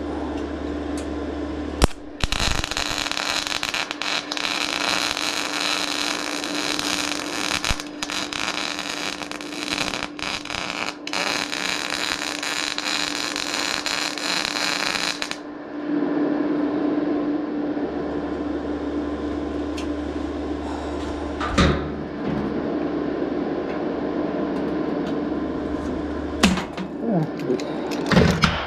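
Electric welding arc crackling and hissing steadily for about thirteen seconds as a patch is welded onto the steel nose cone of a 1955 Fordson Major, with a few brief breaks where the arc stops and restarts. Before and after the weld a steady machine hum runs, and a few sharp knocks come near the end.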